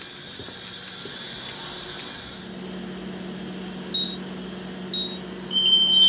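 Building fire alarm sounders: a high-pitched hiss cuts off about two and a half seconds in, leaving a low hum. Two short high beeps follow, then a steady, high-pitched alarm tone starts near the end as the notification circuit sounds again.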